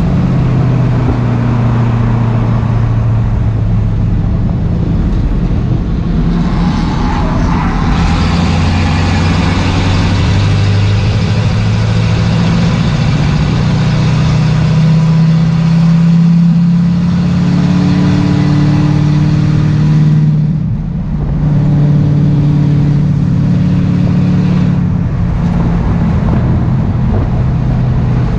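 Race car's engine heard from inside the stripped, roll-caged cabin, running hard under load with its pitch rising and falling as the revs change. A little past two-thirds of the way in, the engine note drops away briefly, as when the driver lifts off the throttle, then picks up again.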